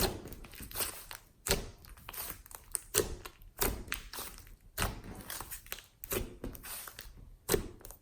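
Glossy slime worked by hand with clay mixed in, giving irregular sharp sticky clicks and pops with soft squelching between them.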